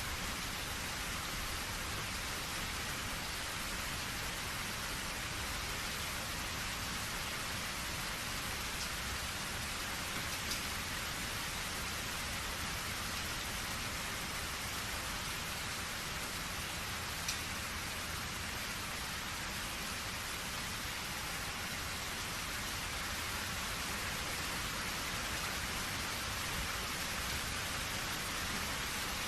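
Steady rain falling on surfaces, an even hiss with a few distinct drop ticks, one about ten seconds in and another about seventeen seconds in.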